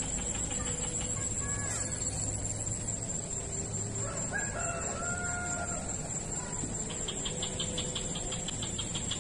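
A rooster crowing, its longest call about four seconds in, over a steady high drone of crickets and other insects.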